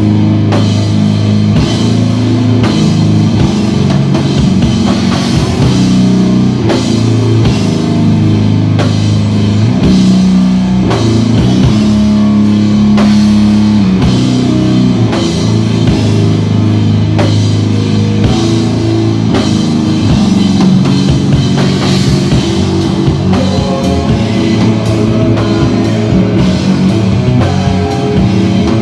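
Instrumental rock band playing live, with drum kit and electric guitar, loud and steady throughout.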